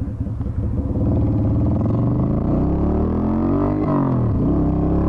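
Yamaha Virago XV250's air-cooled V-twin with a custom exhaust, heard from the rider's seat, pulling away after a turn: the engine note rises steadily, drops sharply about four seconds in as the rider shifts up a gear, then climbs again.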